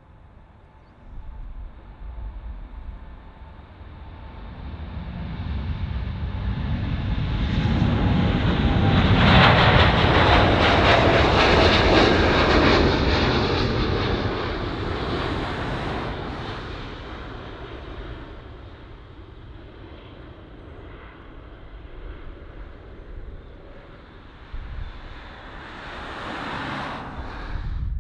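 Boeing 787 Dreamliner's GE GEnx turbofans at takeoff power as the jet rolls and lifts off close by: a roar that builds to its loudest about ten seconds in, with an engine whine that drops in pitch as it passes, then fades as it climbs away. A rumble swells again briefly near the end.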